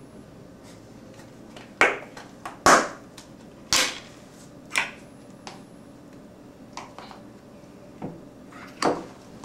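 Kitchen things being handled and set down on a table, among them a tin of cocoa powder: about half a dozen sharp knocks and clunks at uneven intervals, one of the louder ones near the end.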